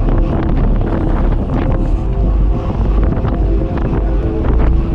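Wind buffeting a microphone carried on a moving bicycle: a heavy, steady low rumble with scattered small knocks through it.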